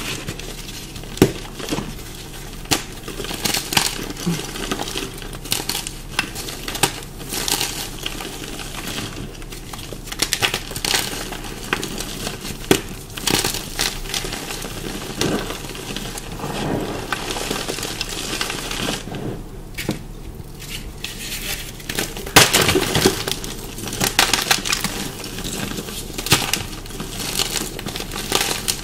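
Dyed and pasted chalk blocks being bitten and chewed close to the microphone, with crisp crunches coming at irregular intervals. The chalk has turned crunchy and dusty from the dyeing and pasting.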